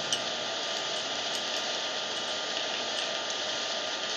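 Steady background noise, a continuous hiss with a faint hum, runs without a break. Over it come a sharp click just after the start and a few faint ticks, from metal knitting needles being worked.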